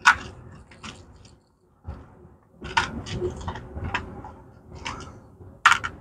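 Irregular sharp clicks and clacks of small hardware and hand tools being handled, about half a dozen, the loudest near the end.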